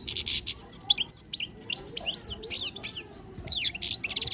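European goldfinch singing: rapid twittering phrases of quick, high chirps and trills, with a short break about three seconds in before another burst.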